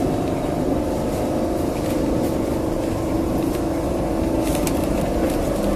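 Lisbon traditional electric tram running through the streets, heard from on board: a steady low rumble of wheels on rail with a constant hum, and a few light clicks and rattles.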